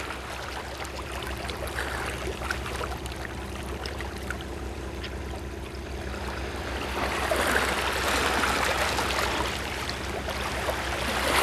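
Seawater washing against the seawall, a steady rushing that grows louder about seven seconds in, over a steady low hum.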